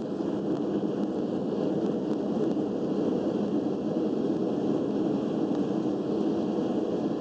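Steady rumble inside the cabin of a Boeing 757 on its landing roll, from the engines, airflow and wheels on the runway, a little louder about half a second in.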